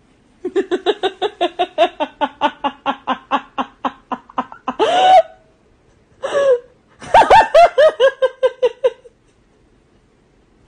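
A person laughing hard in a long run of quick, evenly spaced bursts, about five a second, then a higher rising squeal and, after a short pause, a second run of higher-pitched laughing bursts.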